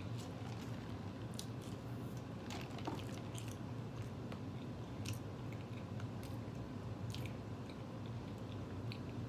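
A person chewing a burger with their mouth, with scattered small wet clicks and smacks over a steady low hum.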